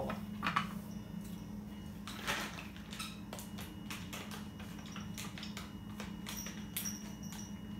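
Cat crunching dry treats from its bowl: faint irregular clicks and a few short scraping rustles over a steady low hum.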